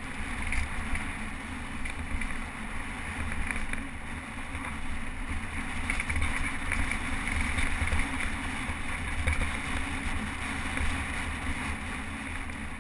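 Steady wind buffeting the microphone, a low rumble under a rushing hiss.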